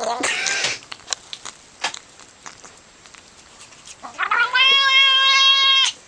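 A cat meowing: a brief call at the start, then about four seconds in one long, drawn-out meow held at a steady pitch for nearly two seconds.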